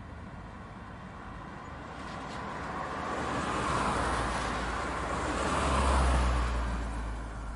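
A car passing by: tyre and engine noise swells, is loudest with a deep rumble about six seconds in, then fades away.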